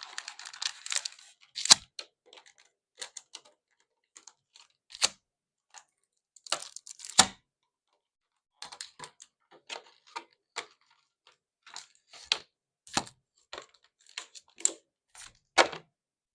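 Hands handling a Pokémon TCG collection box and its packaging: scattered clicks, taps and short rustles of cardboard and plastic, with a brief crinkling rustle at the start.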